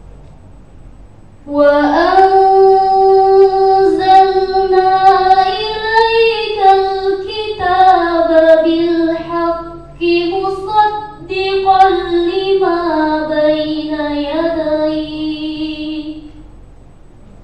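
A teenage girl reciting the Quran in murattal style into a microphone: a melodic phrase that begins about a second and a half in, holding long steady notes and gliding between them, with two short breath pauses about two-thirds of the way through, and ending shortly before the close.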